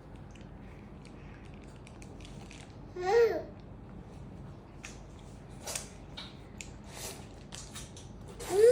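A baby's voice babbling: a short vocal sound, falling in pitch, about three seconds in, and a louder, longer one starting near the end, with faint small clicks in between.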